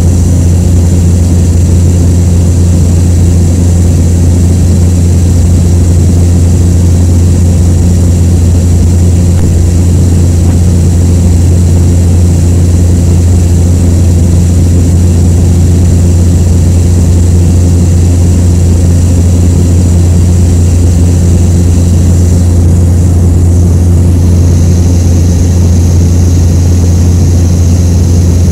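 Cessna single-engine piston plane's engine and propeller droning loudly and steadily in flight, heard inside the cabin, with a high hiss of air over it.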